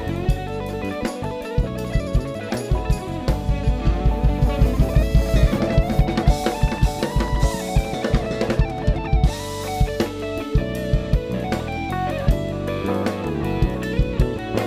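Jazz band playing live: a semi-hollow electric guitar plays lead over drum kit and congas. A few seconds in, the drums pick up into a quick run of hits.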